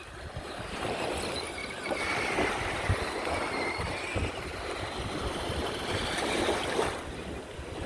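Small electric motor of a Monster Jam Megalodon RC monster truck whining faintly as it drives, over a steady rushing noise with low thumps.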